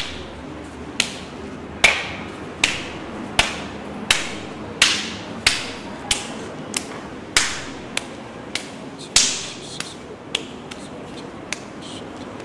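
A steady run of sharp knocks or smacks, roughly three every two seconds and uneven in strength, each with a brief ringing tail.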